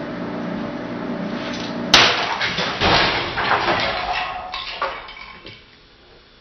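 Craftsman 5-inch bench grinder, wheels removed, running with a steady motor hum; about two seconds in a sledgehammer strikes it with a loud crash, followed by several more knocks and a clatter that fades away over a few seconds, and the motor's hum stops.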